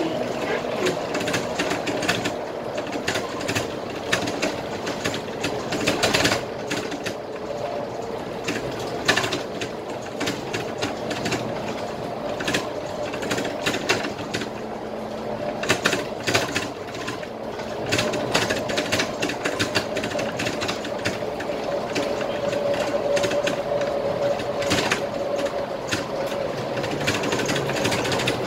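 Scania K320IA bus running on the road, heard from the driver's seat: steady engine and road noise with frequent clicks and rattles, and a steady whine that grows stronger in the second half.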